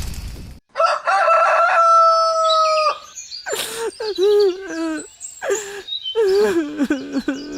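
A rooster crows with one long held call, followed by a string of short, rapid clucking calls.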